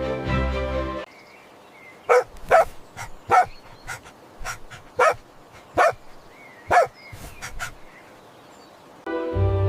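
A dog barking: a string of short, sharp barks, about six loud ones with smaller yips between, over about five seconds. Background music plays in the first second and comes back near the end.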